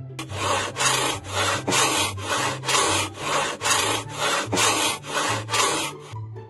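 Rhythmic back-and-forth rasping strokes, about two a second, as of rubbing or sawing by hand, stopping near the end.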